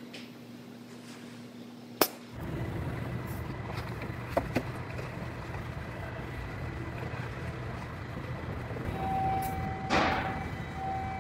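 Steady body-shop background hum with a sharp click about two seconds in, then two brushing swishes near the end as a rag is wiped across a car body panel.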